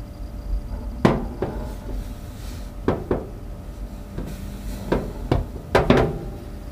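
Trangia camp cookware being handled: about four pairs of sharp metallic knocks and clinks with brief ringing, over a low steady rumble.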